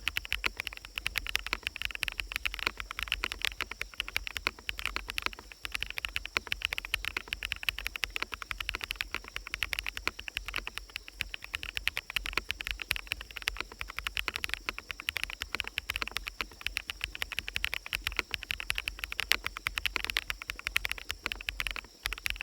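Steady, fast typing on a fully lubed mechanical keyboard with BSUN Sunset Yellow switches, a dense run of key clicks, over forest ambience with birds and a steady high insect-like tone.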